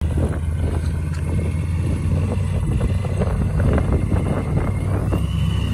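Supercharged Jeep Hemi V8 engines idling steadily side by side, with wind buffeting the microphone.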